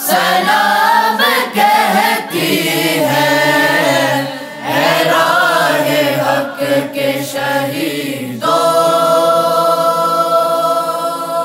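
A man and a group of boys singing an Urdu nasheed together in a choir over a steady drone. About eight seconds in they settle on one long held final chord, which begins to fade at the very end.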